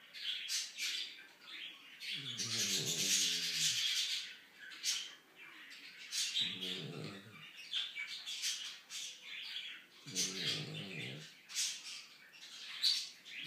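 A dog lying on its back gives three low, drawn-out groans, each about a second long and spaced about four seconds apart. A scratchy rustle runs through the whole stretch.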